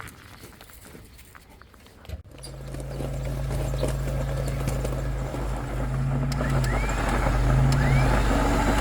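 Electric winch motor switching on about two seconds in and running steadily as it spools in new cable held under tension, its hum growing louder.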